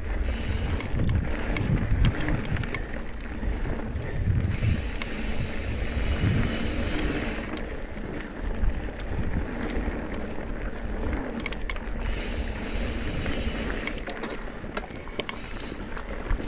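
Mountain bike ridden along dirt singletrack: wind buffeting the microphone, tyres rolling over the ground, and scattered sharp clicks and rattles from the bike over rough spots.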